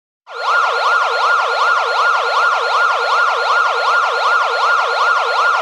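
Electronic alarm siren that starts abruptly and sweeps rapidly up and down in pitch, about three sweeps a second, in an even, unbroken cycle.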